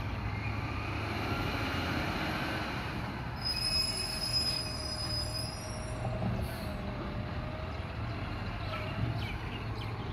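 Automated side-loading garbage truck at the curb with its diesel engine running and a wavering mechanical whine. About three and a half seconds in, a high-pitched squeal sounds for about two seconds.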